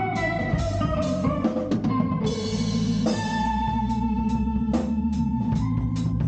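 Live band instrumental with guitar, organ and drum kit, held organ notes over a steady bass and regular drum hits.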